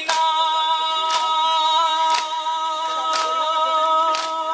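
A noha reciter, unaccompanied, holding one long sung note of a Muharram lament, while mourners beat their chests in matam: a sharp slap about once a second.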